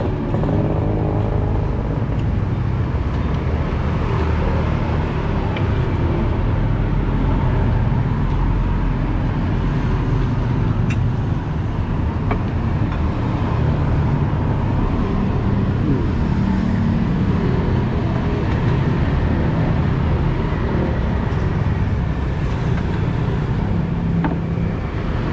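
Steady road traffic passing on a busy street, a continuous low rumble of vehicle engines and tyres.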